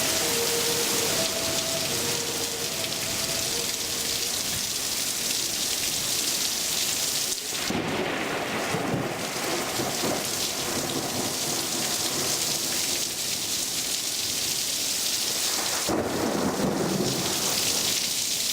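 Heavy rain pouring steadily, with an outdoor tornado warning siren sounding in a two-tone high-low pattern that stops about four seconds in. Thunder rumbles twice, about eight seconds in and again near sixteen seconds.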